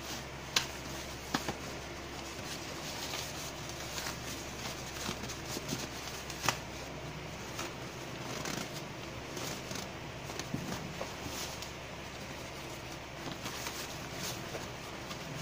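Rustling and crinkling of a shiny synthetic rain cover as it is stretched and tucked by hand over a canvas camera bag, with scattered small clicks and a few sharper ones.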